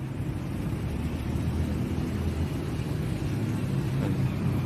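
Steady low rumble of city street traffic, with no distinct passing vehicle or other event standing out.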